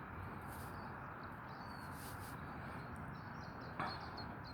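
Faint, short, high bird chirps scattered over a steady background hiss outdoors, with one brief click near the end.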